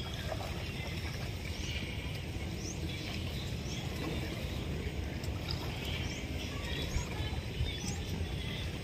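Steady low rumble with small birds chirping now and then, short high chirps scattered throughout.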